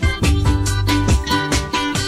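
Background music with a steady beat, bass and plucked guitar.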